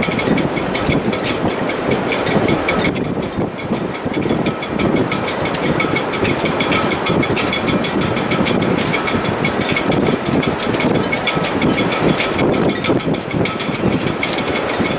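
Strong wind in a sailboat's shrouds and rigging in heavy weather: a loud, continuous rushing noise that swells and eases unevenly, with no pitched tone.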